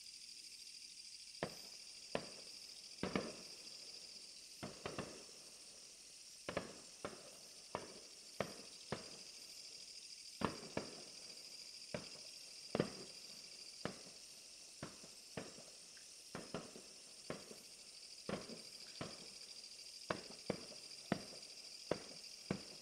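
Fireworks going off in a long irregular series of sharp bangs, about one or two a second, each ringing out briefly, over a steady high-pitched hiss.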